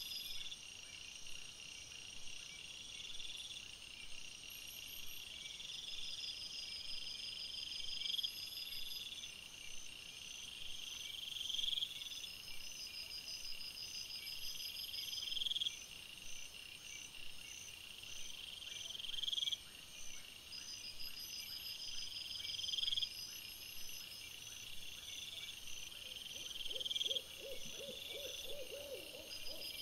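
Night insects chirring in a steady high chorus, with one buzzing phrase that swells and cuts off about every four seconds. Near the end a lower, rapidly pulsing call joins in.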